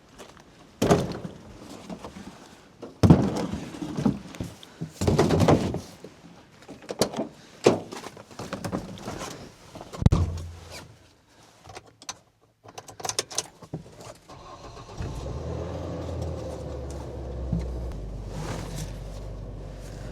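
A run of separate knocks and thumps, then the engine of a small farm truck starts about three-quarters of the way through and runs steadily.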